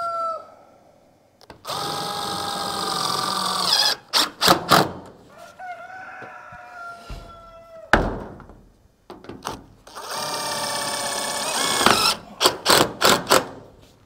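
Cordless drill driving roofing screws through metal roofing panels twice. Each time there is a steady run of about two and a half seconds, then several short trigger bursts to seat the screw. A rooster crows once between the two screws.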